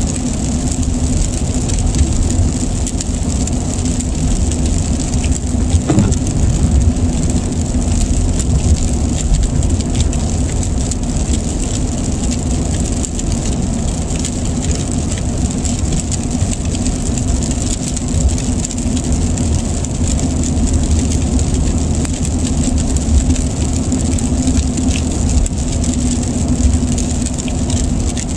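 Steady car road noise heard from inside the cabin while driving on a wet highway, with tyres and engine running and rain on the windshield.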